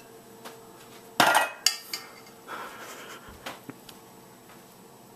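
Metal pot and utensils clattering at a stovetop: a loud clank about a second in, a sharp knock just after, then a few lighter knocks and scrapes.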